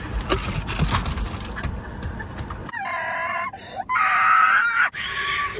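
Rustling and knocking, then a young woman screaming in fright, three high-pitched shrieks in a row, the middle one the loudest and longest.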